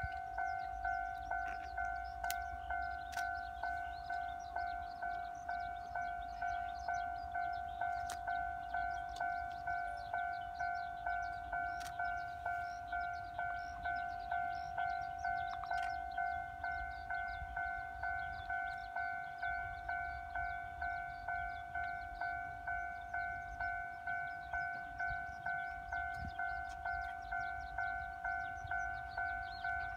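Railway level-crossing warning bell ringing steadily, an evenly repeating two-tone ding at about one and a half strikes a second: the crossing alarm for an approaching train.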